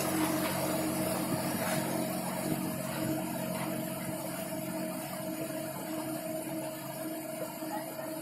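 Motor of a fishing-pond 'mesin katak' (frog machine) running with a steady hum.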